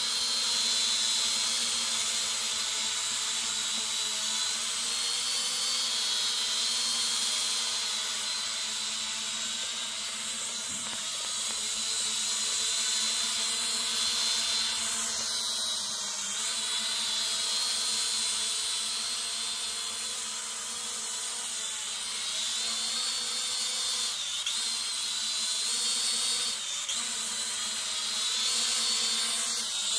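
Small foldable toy quadcopter drone flying close by: its motors and propellers make a steady high whine that wavers a little in pitch as it manoeuvres.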